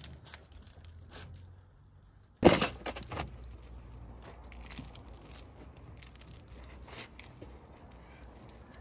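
A soapy wash mitt wiping over a car's wet body panels. There is a sudden loud cluster of squelches and slaps about two and a half seconds in, then softer, steady rubbing with small clicks.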